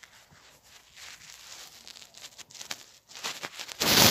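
Handling noise on a phone's microphone: faint scattered clicks, then from about three seconds in a rough rubbing and rustling of fingers and blanket against the phone that gets loud near the end.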